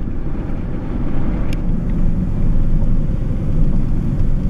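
Car driving along a road, heard from inside the cabin: a steady low rumble of engine and tyres, with one faint tick about a second and a half in.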